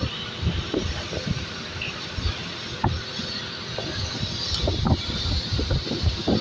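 Oxy-fuel cutting torch cutting through steel plate: a steady hiss from the gas jet with irregular crackling pops as sparks spray from the cut.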